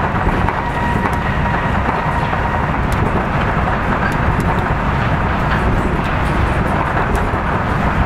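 Kitakyushu Monorail straddle-beam car running along its track, heard from inside the car: a steady rumble of its rubber tyres on the concrete beam. A faint high whine fades out about half a second in.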